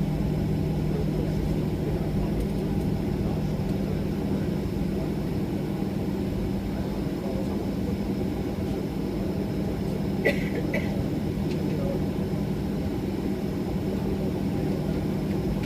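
Steady cabin noise of a Boeing 737-800 with its CFM56 engines running, heard from inside the forward cabin: an even rumble with a steady low hum. About ten seconds in there is one short, sharp sound with a brief high two-part tone.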